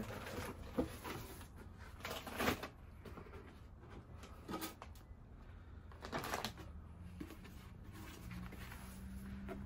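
Rummaging through old books and papers in a wooden crate: a few short rustles and knocks of items being handled and pulled out, spaced a second or two apart.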